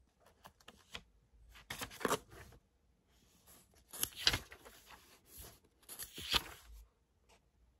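Pages of a thick book being turned by hand: three papery swishes about two seconds apart.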